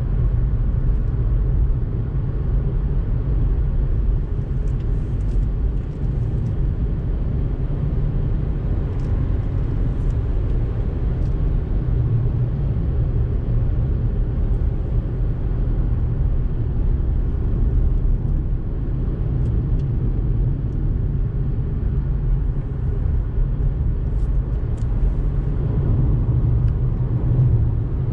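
Steady low rumble of a car's engine and tyres on the road, heard from inside the cabin while driving at a steady speed.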